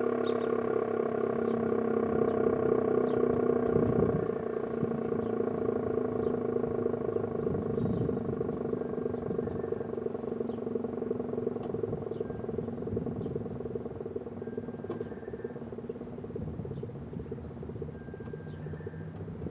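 American Signal RM-127 rotating outdoor warning siren sounding a steady tone. It swells every few seconds as it turns and slowly grows quieter.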